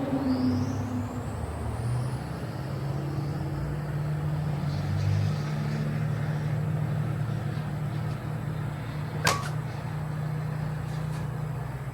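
A vehicle engine running steadily, with one sharp click about nine seconds in.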